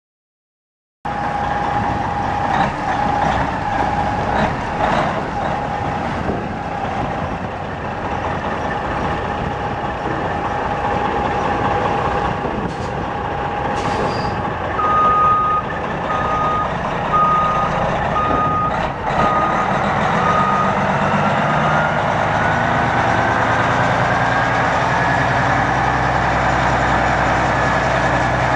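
Semi truck's Detroit Series 60 12.7L diesel engine running. A steady high tone sounds for the first several seconds, and a repeated beep of a little more than one a second comes about midway, with short hisses. Near the end the engine speeds up with a rising whine.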